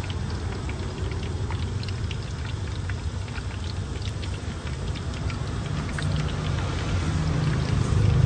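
Food-stall background: a steady low hum with scattered faint crackling ticks over it.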